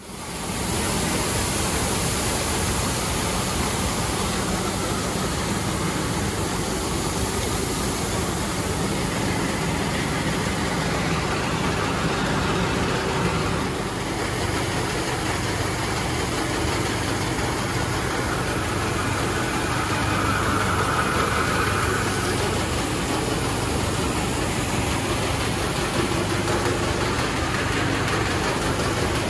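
Engine-driven farm machinery running steadily. It starts abruptly and holds an even noise with a steady low engine note throughout.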